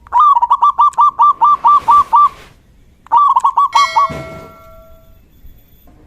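Male zebra dove (perkutut) singing: a fast string of about ten short, clipped cooing notes, then after a pause a shorter phrase of about five. Right after the second phrase a ringing tone fades away over about a second.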